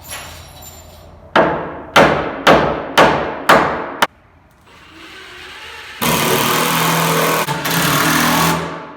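Nails being driven into a wooden floor joist: six sharp strikes about half a second apart, each ringing briefly. A few seconds later comes a loud, steady rushing noise that lasts about two and a half seconds.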